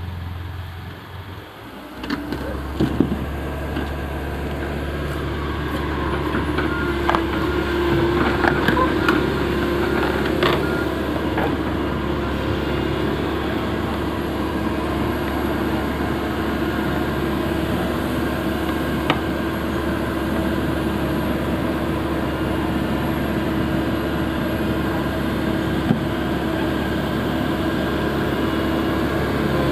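Diesel engine of a working excavator running steadily, with a few scattered knocks and clinks.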